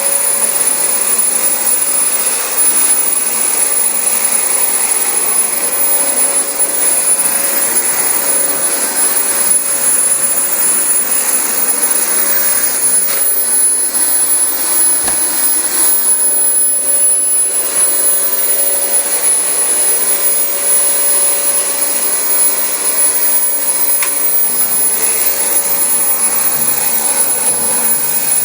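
Dyson DC25 bagless upright vacuum cleaner running steadily over carpet: a constant rush of suction air with a thin, high-pitched whine, easing slightly now and then as it moves.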